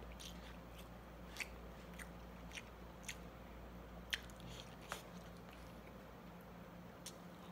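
A person eating rice with a spoon from a bowl: faint chewing, with a few short, sharp clicks scattered at irregular intervals.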